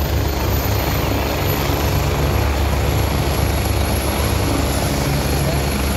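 Helicopter running close by: a steady, loud rapid low chop of the rotor blades over a wide engine hiss, with a thin, steady high whine.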